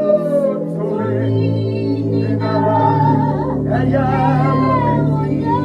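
Worship music: long sung notes over sustained keyboard chords, with the chord changing about a second in and again past three seconds.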